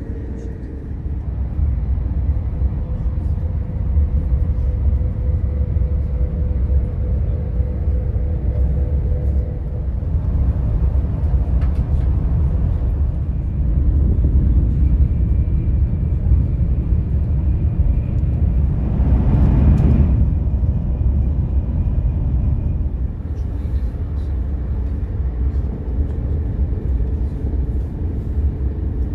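Cabin noise of a KTX-Cheongryong high-speed train running at speed: a steady low rumble of wheels and air with a faint steady hum, swelling briefly into a louder rush about two-thirds of the way through.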